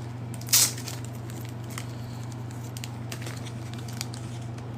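Trading card packs and cards being handled: a brief tearing sound about half a second in, then light crinkles and small clicks, over a steady low electrical hum.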